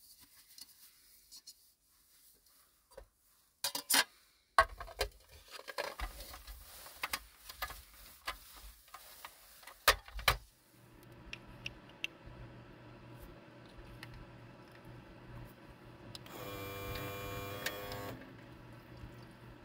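Dishes clinking and knocking as they are handled, then a faint steady hum, and near the end a small electric water-bottle dispenser pump running with a steady motor whine for about two seconds.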